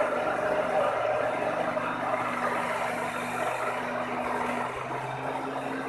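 Electric blender motor running steadily at speed, whipping egg while oil is drizzled in to emulsify it into mayonnaise.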